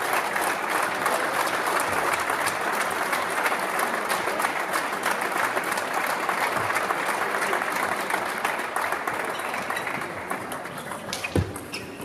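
Applause: a dense, steady patter of many people clapping that dies away over the last couple of seconds, with one sharp knock near the end.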